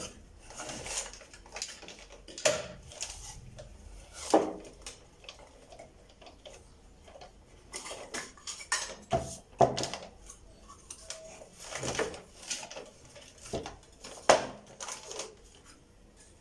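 Irregular clicks, knocks and scrapes of a hair dryer's plastic casing being prised apart and handled as it is opened up, with a few sharper knocks.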